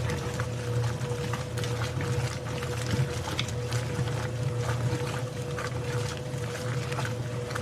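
Washing machine running: a steady low hum with a constant thin whine above it, and many faint irregular ticks over the top.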